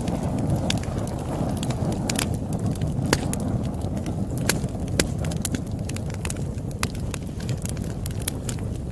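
Campfire burning with a steady low rumble of flames and irregular crackles and sharp pops from the burning wood, a few louder pops standing out.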